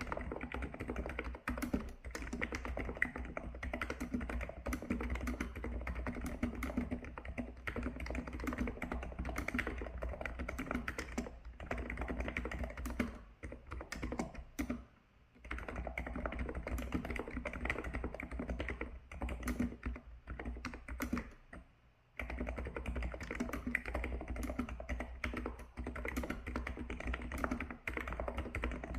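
Continuous fast typing on a Hansung GK898B keyboard with 50 g electrostatic capacitive (contactless) switches: a dense run of soft keystrokes. Typing pauses briefly about halfway through and again about three quarters in.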